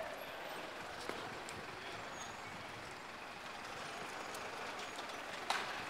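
Steady outdoor city-square ambience: an even hiss of distant traffic, with a faint click about a second in and a short, louder hiss near the end.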